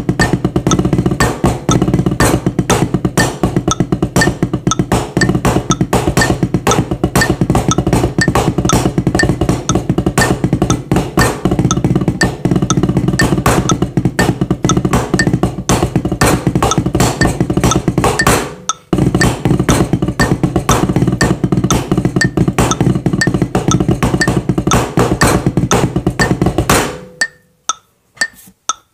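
Drumsticks on a rubber practice pad playing a fast rudimental snare solo of rolls, flams and accented sixteenth notes. The playing breaks off briefly about two-thirds of the way through, then stops near the end, leaving a few light taps.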